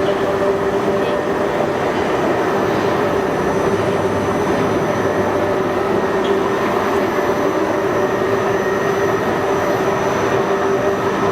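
Continuous charcoal carbonization plant running: a loud, steady mechanical drone with a few held whining tones over it, from the line's fans, motors and diesel burner.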